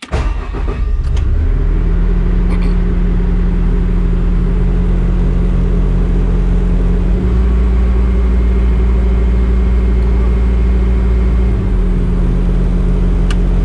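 Bobcat S850 skid steer's diesel engine starting abruptly and running steadily, loud inside the cab, with a steady hum over a deep rumble that grows heavier for a few seconds in the middle.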